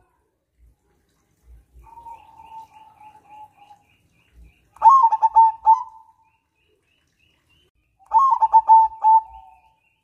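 Zebra dove (perkutut) cooing. A soft, drawn-out coo about two seconds in is followed by two loud songs of rapid staccato coo notes, about five and about eight seconds in.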